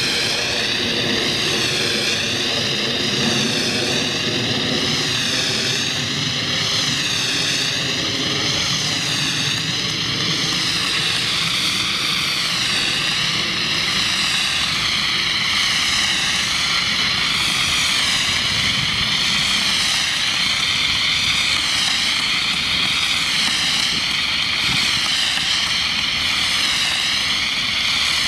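Multi-rotor camera drone's propellers whining steadily, several tones wavering up and down in pitch together, over a rushing noise.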